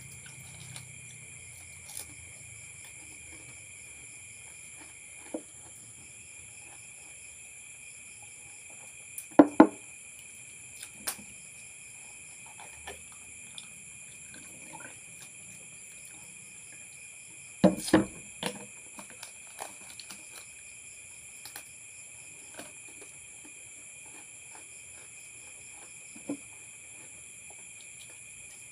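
Steady high-pitched chorus of night insects, crickets, running throughout. A few sharp knocks break in, loudest twice: a double knock about a third of the way in and a quick cluster a little past halfway.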